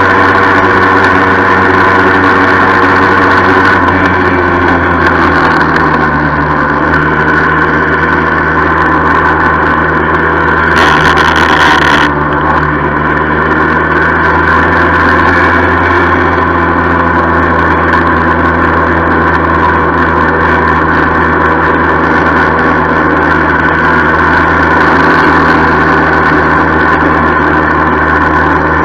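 1976 Yamaha FS-1 moped's small two-stroke single-cylinder engine running steadily under way, with the rattle it carries on this ride. Its pitch shifts about five seconds in, and a burst of hiss lasts about a second around eleven seconds in.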